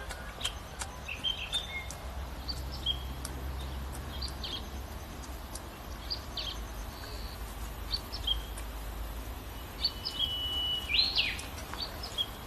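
Scattered short bird chirps and calls over a low rumble. About ten seconds in comes a longer held note, followed by the loudest chirp.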